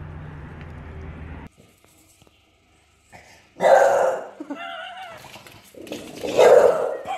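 A dog barking in two loud outbursts about two and a half seconds apart, with a short wavering growl between them, startled by a fake pug head. Before that, a steady car-interior hum cuts off about a second and a half in.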